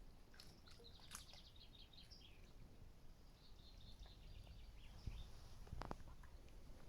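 Faint songbird song: short, rapid, high-pitched trilled phrases about a second in and again from about three and a half seconds, with a single soft click near the end.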